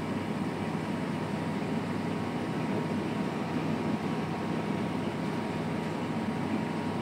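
Steady whirring machine hum with a faint constant tone in it, unchanging throughout.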